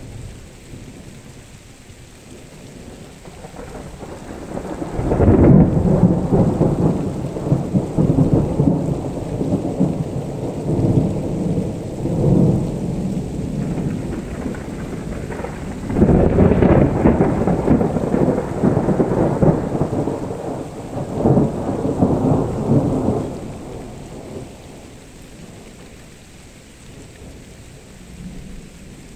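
Thunder rolling in two long rumbles, the first starting about five seconds in and the second about sixteen seconds in, each lasting around eight seconds, over a steady background hiss.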